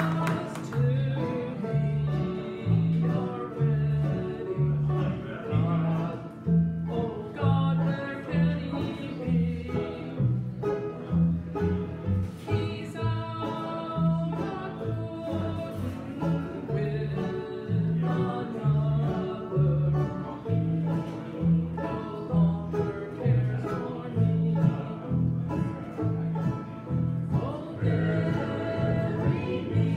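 Bluegrass band playing live together: banjos, acoustic guitar, mandolin, upright bass and fiddle, over a steady two-beat alternating bass line, with a woman singing lead.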